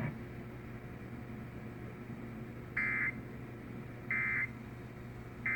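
Emergency Alert System end-of-message data bursts played over a radio: three short bursts of warbling digital tones about a second apart, beginning nearly three seconds in after a low background hum. They signal the end of the Required Monthly Test.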